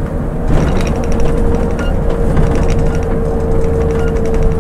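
Scania coach's diesel engine pulling under throttle up a slight rise, heard from inside the cab as a loud, heavy rumble. A steady hum sets in about half a second in and holds.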